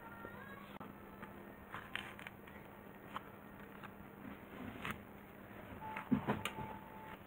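Faint handling sounds: scattered light taps and rustles, then a cluster of soft knocks about six seconds in as chopsticks push a stuck, damp-soiled root ball out of a small plastic nursery pot.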